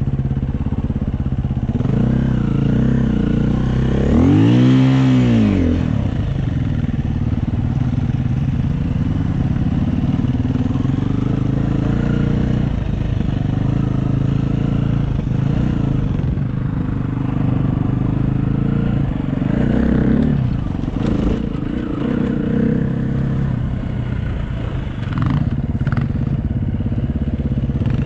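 Dirt bike engine running while riding, its note rising and falling with the throttle, with one hard rev that climbs and drops back about five seconds in.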